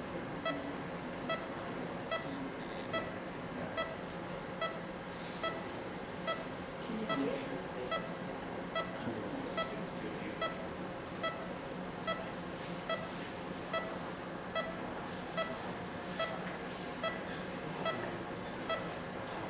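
Operating-room patient monitor giving its pulse beep, a short high tone repeating evenly a little more than once a second in time with the patient's heartbeat, over a steady hum of room equipment.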